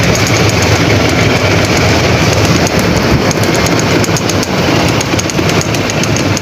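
Golf cart driving over a rough road: its engine runs steadily under a constant rattle of the body and windshield.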